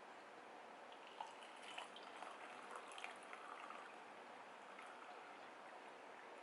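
Near silence: faint room hiss with a scatter of small clicks and light taps in the middle.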